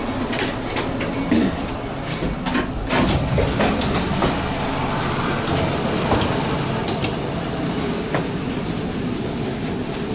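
Inside a moving ЭТ2М electric train car: the train runs with a steady rumble, with a cluster of sharp clicks and knocks in the first three seconds and a few lighter ticks later on.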